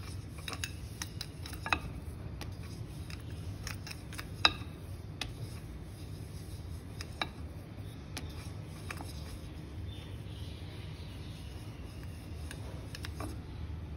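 Thin wooden rolling pin rolling a disc of layered dough on a wooden board, with scattered light clicks and knocks of wood on wood over a steady low hum.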